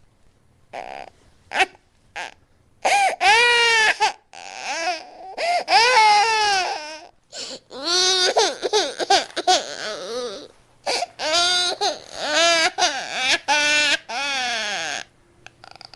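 Repeated high-pitched wailing cries that bend up and down in pitch and sound like a crying infant. A few short cries come first, then long loud wails follow one after another with brief pauses between them, stopping about a second before the end.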